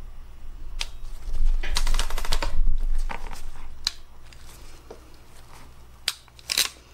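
Clicks and rattles from a hand crimping tool being worked on a butt connector and lifted off the wire leads, with a quick run of clicks about two seconds in. A faint low hum runs underneath.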